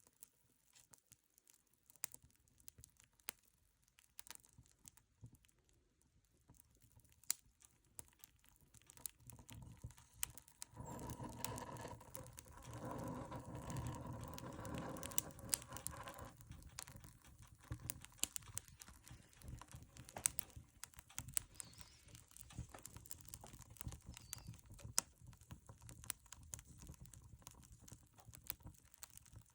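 Wood fire burning in an old stove, crackling and popping irregularly, with a louder rushing stretch about ten seconds in that lasts several seconds.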